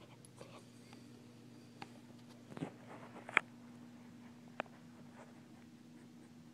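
Beagle moving about on a hard floor: a few scattered light taps and clicks, the sharpest about three and a half seconds in, over a faint steady hum.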